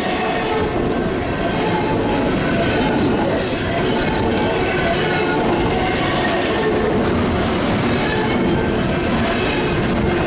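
Double-stack intermodal container train passing at close range: steel wheels on the rails making a loud, steady rumble and clatter, with thin squealing tones running through it.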